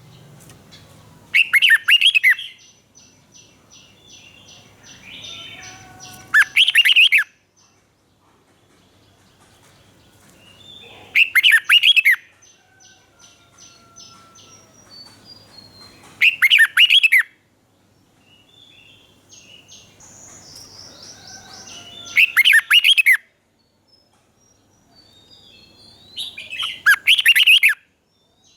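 Red-whiskered bulbul singing: six loud, short warbled phrases, one about every five seconds, with softer rapid chattering calls between them.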